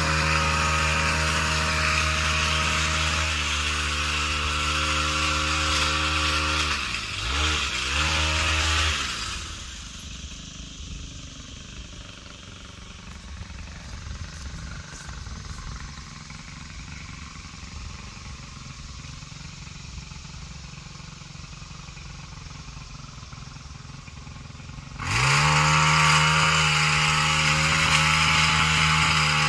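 Small gas engine of a yard power tool running steadily, wavering in pitch about seven seconds in, then falling away to a faint background for about fifteen seconds before it revs back up and runs steadily again near the end.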